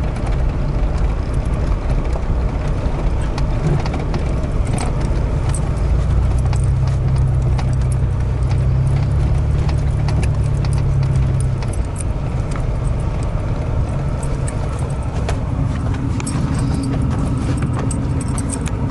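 Vehicle engine and tyre noise heard inside the cab while driving slowly over a rough, snowy dirt road, a steady low drone that is heaviest around the middle. Light rattling and clicking from the cab runs through it.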